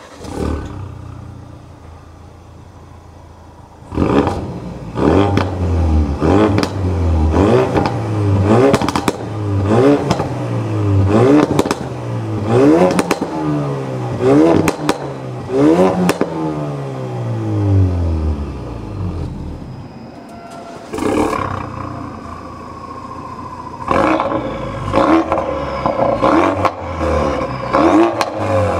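Ford Focus RS Mk3's turbocharged 2.3-litre four-cylinder on its stock exhaust, idling and then revved in quick throttle blips about once a second. About twenty seconds in there is a break and a sharp sound, then the engine idles again on a Milltek Sport non-resonated cat-back exhaust and is revved in blips near the end.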